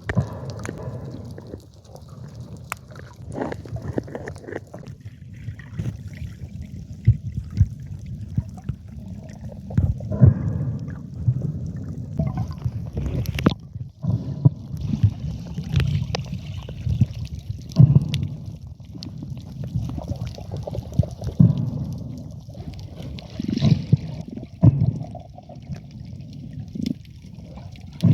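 Sea water sloshing and gurgling against the camera: a low, muffled wash that swells irregularly every second or two, with scattered small knocks.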